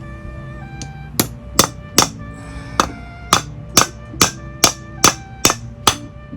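About eleven sharp metal hammer blows, roughly two a second, starting about a second in: a hammer striking an Allen wrench jammed into the Mini Cooper supercharger's stuck oil drain/fill plug to shock it loose. Faint background music runs underneath.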